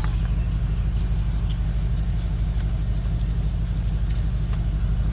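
A steady low mechanical hum with a fast, even pulse, like a motor running nearby, with faint light ticks over it.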